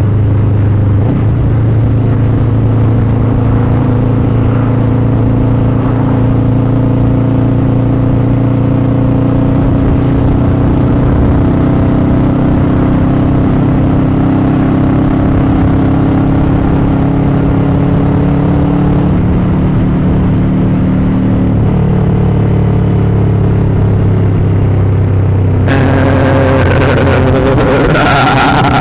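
Motorcycle engine running steadily while riding, heard from the onboard microphone, its pitch dipping slightly twice in the second half. A broad rushing noise comes in suddenly near the end.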